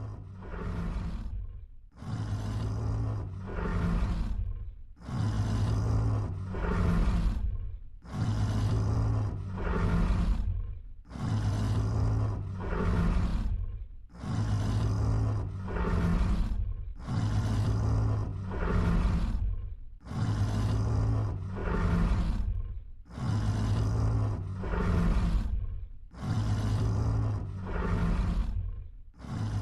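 Custom-made giant-monster roar sound effect for the Tarrasque: a deep, two-part roar repeated over and over, about once every three seconds, with a brief break between repeats.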